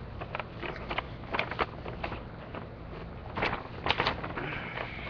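Objects being handled by hand: a scattered series of clicks, taps and rustles, the loudest a few in quick succession about three and a half to four seconds in, over a steady low hum.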